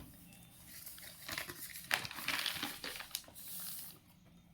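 Faint crinkly rustling with scattered small clicks, the sharpest about two seconds in; it dies away about four seconds in.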